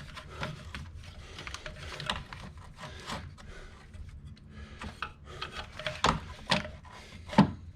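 A part being worked back into place by hand under the hood, rubbing and scraping against the surrounding parts, with a few sharp knocks in the last two seconds as it slides in.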